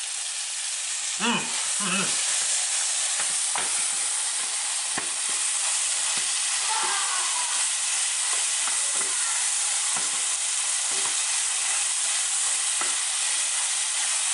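Flour-dusted beef chunks sizzling in a frying pan as they sear over high heat: a steady hiss with scattered pops and crackles of spitting fat.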